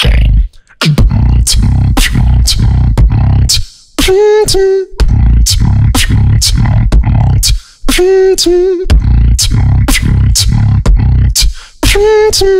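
Solo beatboxing: a heavy sustained vocal bass under sharp snare- and hi-hat-like mouth clicks in a steady beat. A held, pitched hummed note comes in about four seconds in, again around eight seconds, and near the end.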